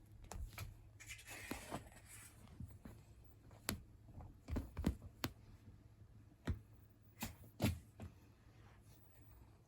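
A chinchilla Persian cat clambering at the side of a bed, trying to climb up. There is a scratchy rustle of claws about a second in, then a dozen or so scattered soft thumps and knocks.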